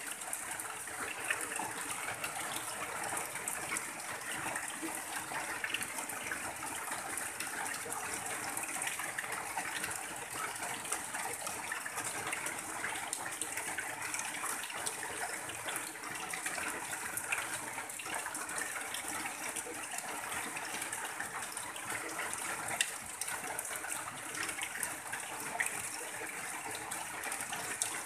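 Steady heavy rain on a tin roof and foliage, with runoff pouring off the roof edge in a stream and splashing below. A couple of sharper drip ticks stand out near the end.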